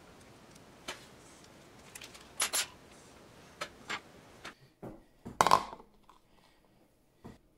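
Small sharp metal clicks and taps of watchmaker's tools, among them a close pair of clicks. About five and a half seconds in comes a louder short clatter of knocks as a plastic bowl is set down on the workbench.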